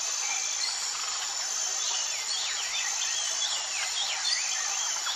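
Nature ambience: a steady high insect drone like crickets, with birds chirping in quick rising and falling calls from about two seconds in.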